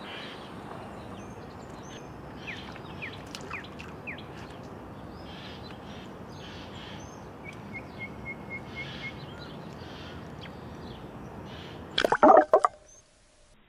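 Lakeside ambience with small birds chirping, including a quick run of about six notes near the middle. About twelve seconds in, a loud brief splash and slosh as the camera goes into the water, after which the sound turns muffled and quiet.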